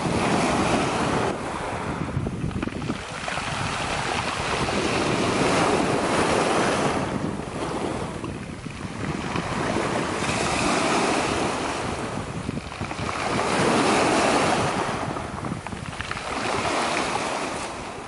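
Small waves breaking and washing up over a beach of smooth black pebbles, swelling and fading about five times, every three to four seconds.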